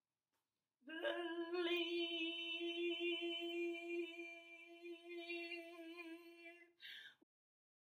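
A woman's unaccompanied voice holding one long, steady note for about six seconds, ending in a short breathy sound.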